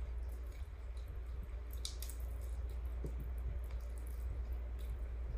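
Wet, squishy tearing and chewing of rotisserie chicken eaten by hand, with scattered soft clicks and a sharper crackle about two seconds in, over a steady low hum.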